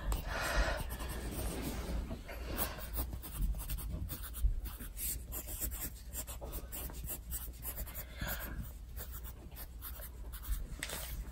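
Pencil writing on lined notebook paper: the lead scratches in many quick, short strokes.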